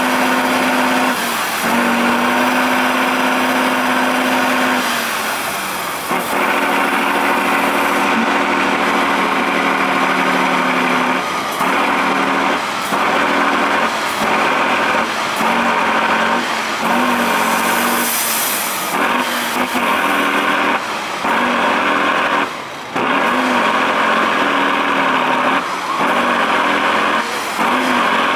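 Tatra 813 6x6 trial truck's diesel engine running at high revs under heavy load as it climbs out of a deep muddy gully. It holds a steady note for the first few seconds, then is revved up and down over and over, about once a second.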